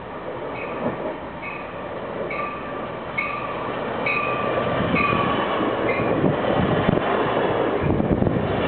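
Amtrak Pacific Surfliner push-pull train arriving, cab car leading: its bell strikes about once a second and stops about six seconds in, while the rumble of the wheels and cars grows steadily louder as the train draws near.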